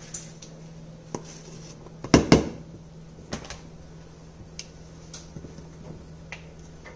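Kitchen utensils clicking and knocking as flour is scooped with a plastic measuring cup, levelled with a butter knife and tipped into a stainless steel mixing bowl. Two sharp knocks close together about two seconds in are the loudest, with lighter clicks scattered through.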